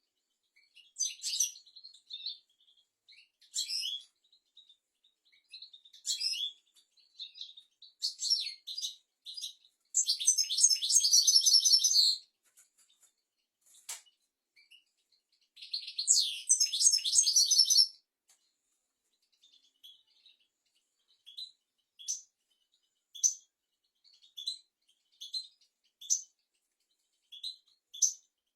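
European goldfinch singing: scattered twittering notes, two longer fast trilled phrases about ten and sixteen seconds in, then short single chirps spaced about a second apart. A sharp click sounds once midway.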